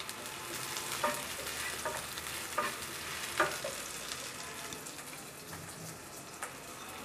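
Sliced onions and green chillies sizzling in a little oil in a nonstick frying pan, stirred with a wooden spatula that knocks and scrapes against the pan a few times.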